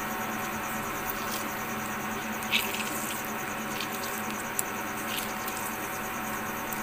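Hand mixing damp flattened rice in a steel bowl: soft rustling with a few brief louder scrapes around the middle, over a faint steady high chirping of insects.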